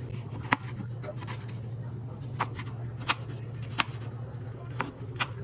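A kitchen knife cutting onions on a cutting board: scattered, irregular sharp knocks, about seven of them, over a steady low hum.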